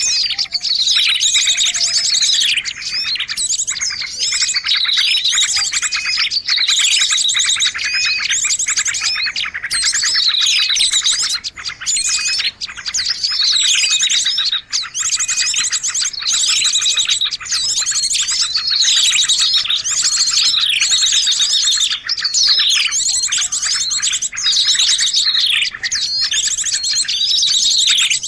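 Bird-lure recording of many small birds chirping and twittering at once, a dense, busy chorus with rapid trills and a falling call that repeats about every two seconds.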